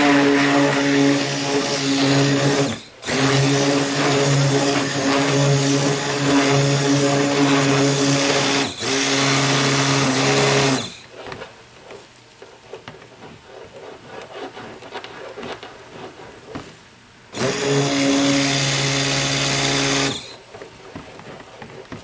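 Handheld stick blender running in a plastic tub of oils and lye solution, blending cold process soap batter. It runs in bursts: about eleven seconds with two brief breaks, then a pause of about six seconds, then another burst of about three seconds.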